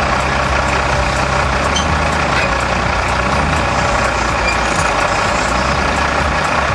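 Heavy machine's engine running steadily at a constant pitch.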